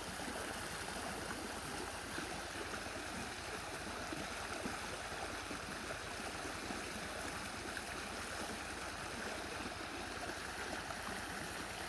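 Mountain creek running over rocks: a steady rushing and gurgling of flowing water.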